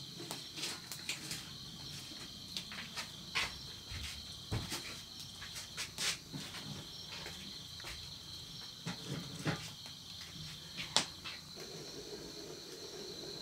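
Steady high-pitched insect chorus, with a scattering of light clicks and knocks from objects being handled; the sharpest knock comes about 11 seconds in, and a low hum starts near the end.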